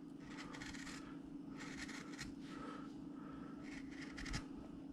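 Hand carving tool cutting into a wood carving: several short, faint scraping strokes, over a steady low hum.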